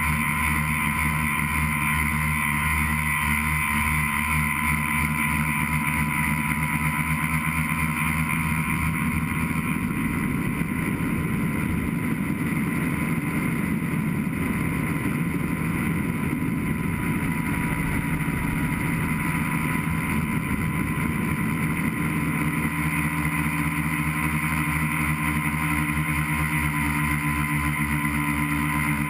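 Tricopter's electric motors and propellers buzzing steadily, picked up by a camera mounted on the craft. A whining tone drifts slightly in pitch, and the sound turns rougher and noisier through the middle stretch.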